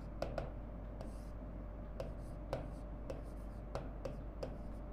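Stylus tapping and scratching on an interactive display panel while writing: about a dozen light, irregularly spaced taps over a faint steady low hum.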